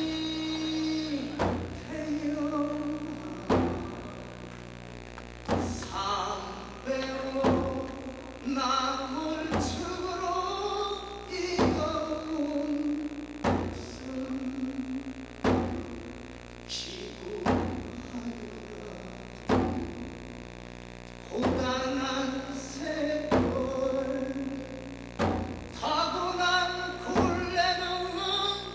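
A male voice singing a slow, bending melody over a drum struck once about every two seconds.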